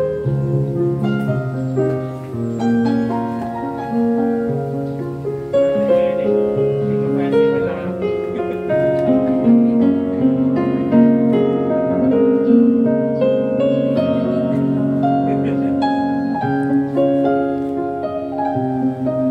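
Instrumental music: a melody of clear pitched notes over held bass notes, at an even, moderate level.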